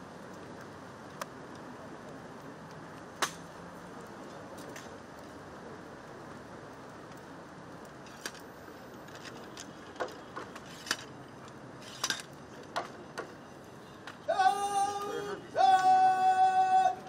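Steady outdoor hiss with scattered sharp clicks, then, about fourteen seconds in, a military bugle sounds two long held notes, the second slightly lower, the loudest sound.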